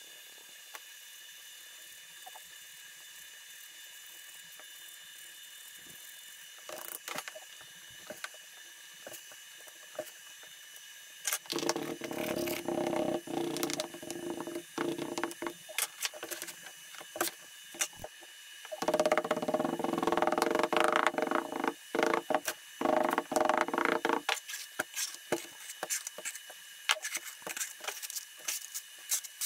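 Moulding sand being packed into a wooden casting flask with a hand rammer: two runs of rapid packing strokes, about six and five seconds long, beginning about a third of the way in. Scattered light clicks and scrapes come before and after them.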